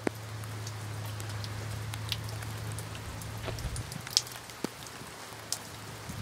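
A steady hiss with scattered short light ticks, like rain on a surface, over a low steady hum that stops about halfway through.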